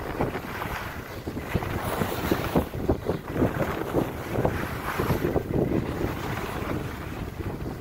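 Wind buffeting the microphone of a skier moving downhill. Skis make an irregular scraping hiss over packed, groomed snow.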